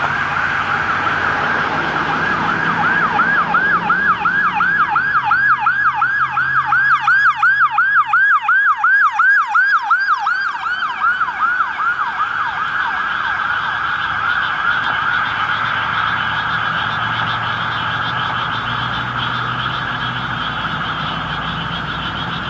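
Electronic emergency-vehicle siren on a responding fire-rescue unit: a slow wail, switching about two seconds in to a fast yelp of about three or four sweeps a second, and back to a wail about eleven seconds in. A vehicle engine runs underneath.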